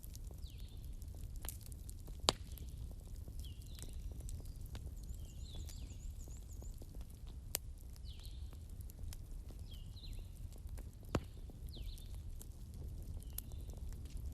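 Bonfire burning: wood crackling with many scattered sharp pops over a low steady rumble, two pops much louder than the rest at about two seconds and eleven seconds in. Short high chirps repeat about once a second behind the fire.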